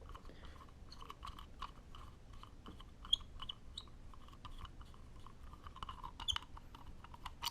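Screwdriver turning the shipping-latch screw out of a GoPro Hero 3 Black counterclockwise: faint, irregular scraping and clicking, with a few sharper clicks.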